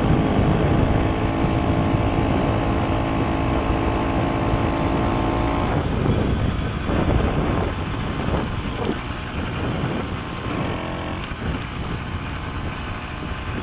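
Motorized bicycle's small engine running under way, with wind buffeting the microphone. About six seconds in, the engine is cut and the bike coasts, leaving wind and rolling noise.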